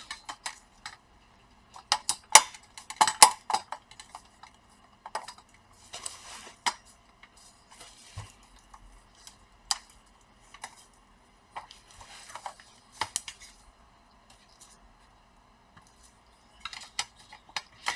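Scattered light clicks and metallic clinks of laptop parts and tools being handled, at an irregular pace with short quiet gaps.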